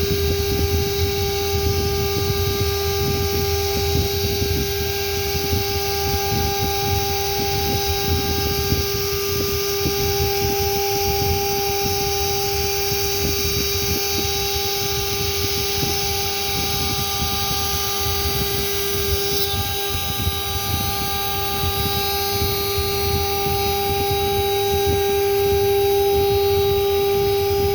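CNC router spindle whining at one steady pitch while its bit cuts grooves into 8 mm veneered board, with the rough, dense chatter of the cut under the whine.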